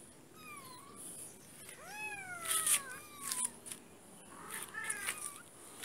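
An 18-day-old kitten mewing: about four thin, high mews, each falling in pitch, with a few faint clicks and rustles between them.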